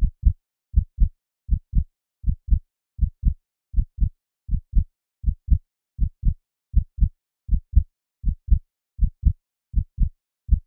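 Heartbeat sound effect: a steady lub-dub, each beat a pair of short, low thumps, at about 80 beats a minute with silence between beats.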